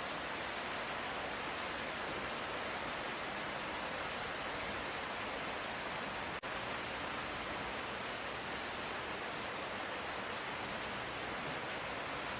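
Steady light rain falling, an even hiss without thunder. A brief dropout with a faint click about halfway through.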